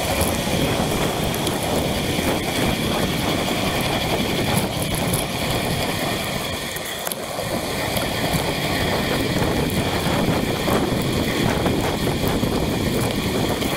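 Steady rushing noise of wind on a bike-mounted camera's microphone and bicycle tyres on a rain-soaked road.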